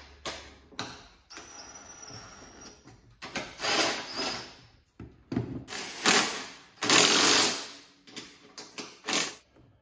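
Cordless power driver running in several short bursts of about a second each, zipping a locking nut down onto the mower deck's blade spindle hardware.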